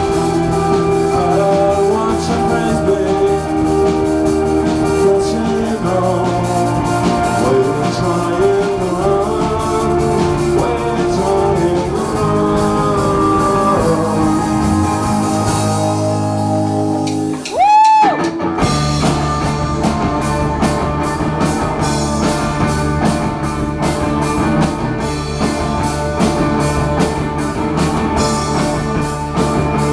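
Live rock band playing an instrumental passage, electric guitar over bass and drum kit. About 18 seconds in the band stops briefly and a loud, short pitch swoop goes up and back down before the music comes back in.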